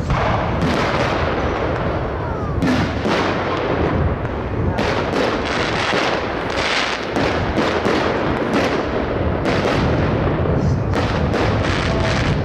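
Fireworks display: aerial shells bursting one after another, with frequent sharp bangs and crackling.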